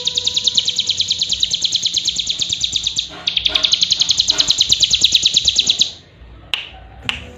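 Hill prinia (ciblek gunung) singing a loud, fast high trill of about ten notes a second, with a short break about three seconds in, stopping about six seconds in. Two sharp clicks follow near the end.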